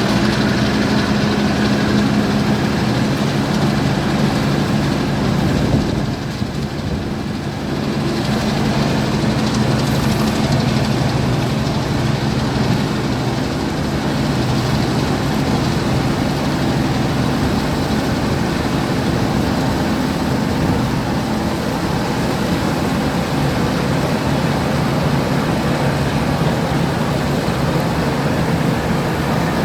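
1967 Massey Ferguson 410 combine harvester running steadily while harvesting wheat, its engine humming under the noise of the threshing machinery. The level dips briefly about six seconds in, then holds steady again.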